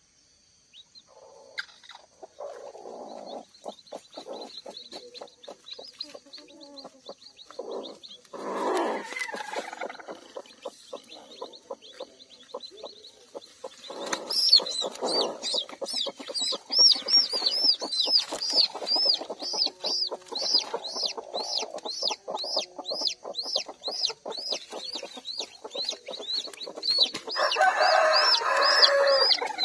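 A broody kampung hen clucking low while hands reach under her in the straw nest, with a louder call about nine seconds in and again near the end. From about halfway, a newly hatched chick peeps rapidly and shrilly, about three peeps a second, as it is handled.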